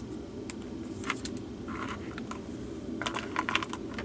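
Light clicks and rattles of small plastic drill containers and diamond-painting drills being handled, in a few short clusters over a steady low background hum.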